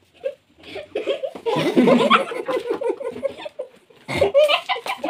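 A small group of boys laughing and giggling together. The laughter starts about a second in, is loudest around two seconds in, and breaks out again near the end.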